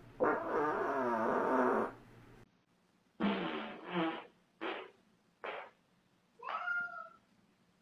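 A long, wavering fart. After a cut come four short farts and then a higher, squeaky one near the end.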